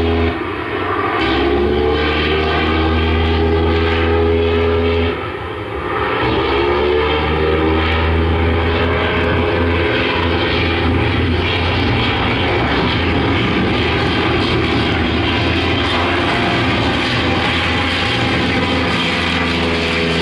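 Piston-engine propeller aircraft running steadily. Its sound dips briefly twice, near the start and about five seconds in, and each time the engine pitch rises again.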